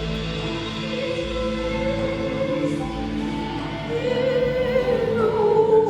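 Choral music: several voices holding long, layered notes over a low pulsing bass.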